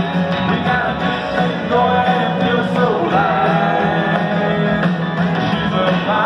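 Live country band playing through an arena's PA system, with guitars to the fore and some singing, heard from the seats with the hall's reverberation.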